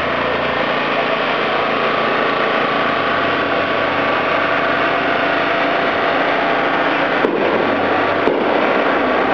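A small engine running steadily, with two brief sharp clicks about a second apart near the end.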